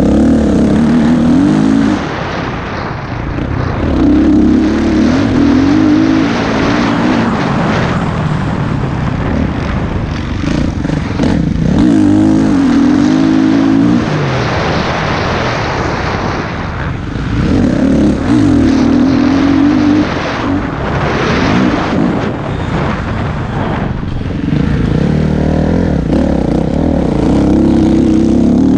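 Small, high-revving racing engines repeatedly speeding up and backing off. A loud surge comes every few seconds, with pitch rising and falling.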